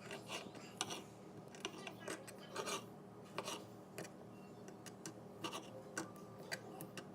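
Knife cutting raw chicken breast on a cutting board: irregular short scraping cuts, about one or two a second.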